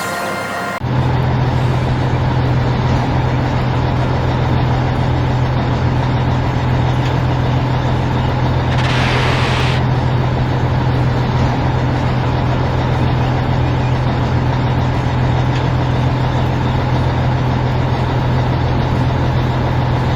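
Heavy diesel engine of logging equipment running steadily with a deep, even hum, with a short hiss about nine seconds in.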